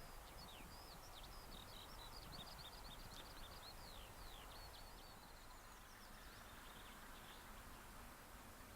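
Faint songbird singing: a rapid run of short chirps and quick downward-sliding notes that thins out about two-thirds of the way through, over a low outdoor hiss.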